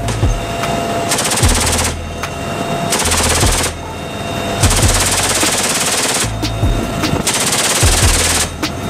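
M134 Minigun, a six-barrel rotary machine gun, firing several long bursts: each is a continuous rapid stream of shots too fast to count.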